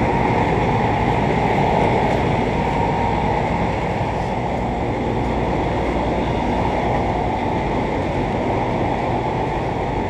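Outdoor central air-conditioning condenser units running, a steady whir of fan and compressor with a low hum underneath.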